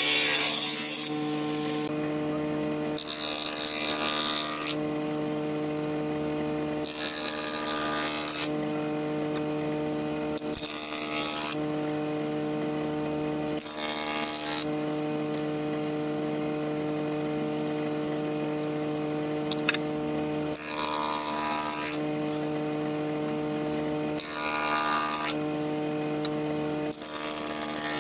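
An electric woodworking power tool runs with a steady motor hum. About seven times, a second or so each, it bites into wood with a hissing cutting noise.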